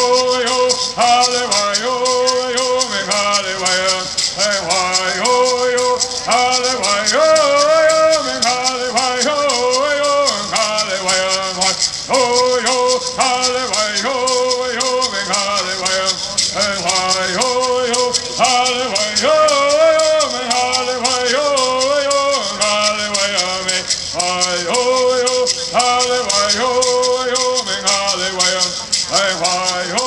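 Kumeyaay bird song: voices singing in unison over gourd rattles shaken in a fast, steady beat.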